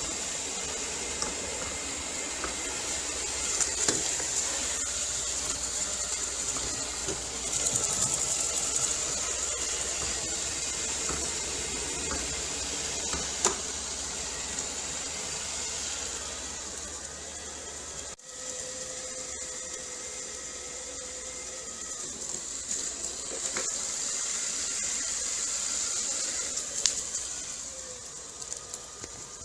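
Robot vacuum cleaner running, a steady high whirring hiss from its suction fan and spinning brushes, with a faint hum and occasional light clicks as it moves. The sound drops out briefly about two-thirds of the way through, then carries on.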